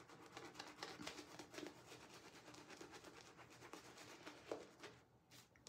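Faint, rapid swishing and scrubbing of a shaving brush working soap lather over the face and stubble, easing off about five seconds in.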